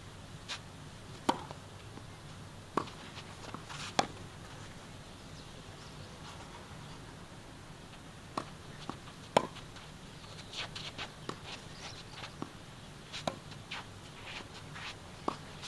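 Tennis ball being hit with rackets in rally play: sharp pops a second or more apart, then a pause of a few seconds and another run of hits. Lighter taps of ball bounces and footsteps on the court fall between them.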